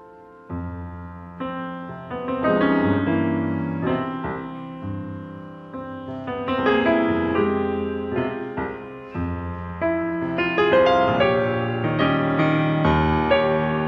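Solo concert piano playing a classical piece. After a note dies away, a new phrase enters about half a second in with deep bass notes under chords, and it continues at full strength.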